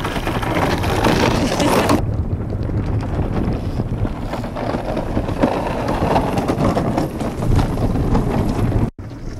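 Wind rushing over the microphone with the rumble of iceboat runners skating over ice. The sound changes abruptly about two seconds in and drops out for an instant near the end.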